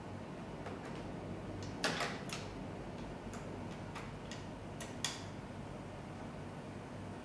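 Irregular light clicks and taps of a hex key turning screws into a 3D printer's plastic frame. There are two louder clacks, about two seconds and five seconds in.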